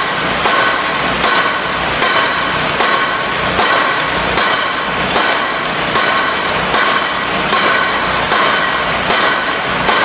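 Pile driver hammering steel piles: a steady run of ringing metallic clangs, about one blow every 0.8 seconds.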